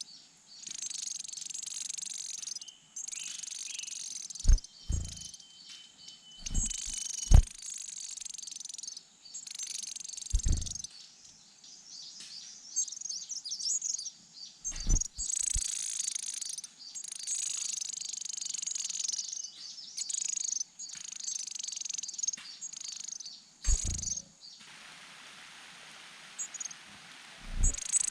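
High, thin chirping of leaf warbler nestlings, coming in repeated bursts with short breaks. Several dull low thumps break in, the loudest about seven seconds in.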